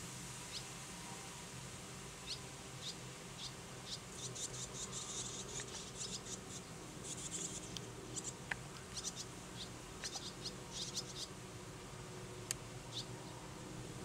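Barn swallows, recently fledged young among them, giving short high chirps and twitters in quick runs, busiest in the middle, over a faint steady low hum.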